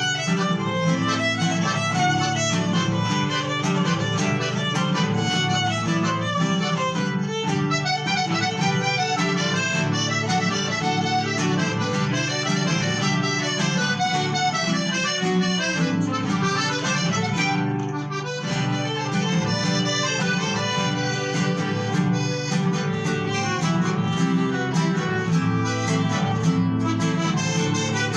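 Instrumental ensemble music played continuously, with violin and accordion carrying the melody over guitar accompaniment.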